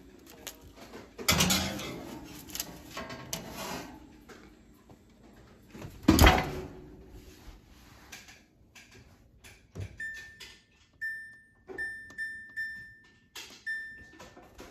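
Kitchen clatter of baking trays being handled, with two sharp knocks, the louder about six seconds in. Then, from about ten seconds in, a run of about six short, evenly pitched beeps from an electric oven's keypad as its buttons are pressed to set the timer.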